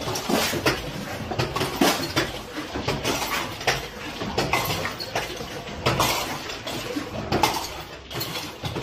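Glass-and-metal ceiling chandelier swinging, its glass shades and arms clinking and rattling in a rapid, irregular clatter as an earthquake shakes the house.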